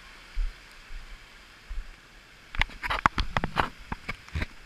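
Handling noise on a hand-held action camera: a few dull bumps as it is carried, then from a little past halfway a quick run of sharp rubs and knocks as a finger wipes the wet lens.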